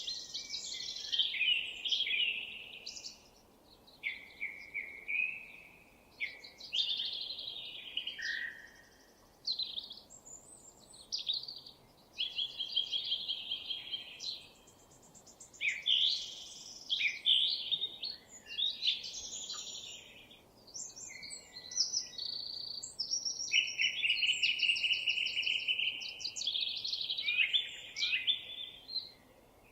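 Songbird singing a long run of varied, rapid phrases with fast trills and chirps, broken by short pauses, over faint background hiss.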